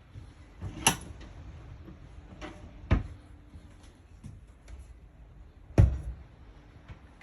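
A few sharp knocks and thumps inside a small room, the loudest about one, three and six seconds in, with fainter taps between.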